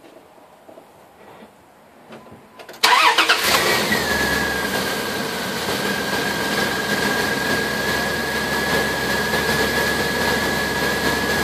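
2001 Dodge Ram 1500's engine starting suddenly about three seconds in, right after its alternator was replaced, then idling steadily. A steady high whine runs over the idle, dipping slightly as the engine settles.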